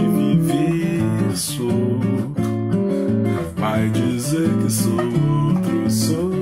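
Nylon-string classical guitar strummed and picked in a steady chord accompaniment, with a man singing over it.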